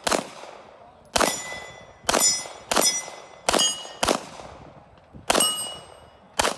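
Pistol fired at steel plate targets, about eight shots spaced half a second to a second apart, most followed by the short ring of a hit steel plate.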